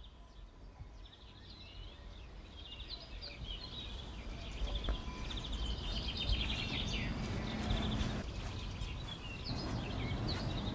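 Outdoor ambience with small birds chirping and twittering in quick trills over a low steady background rumble, growing louder over the first few seconds.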